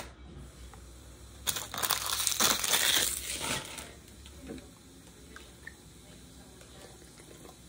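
Foil wrapper of a Pokémon booster pack crinkling and tearing for about two seconds, starting about a second and a half in. A sharp click comes at the very start.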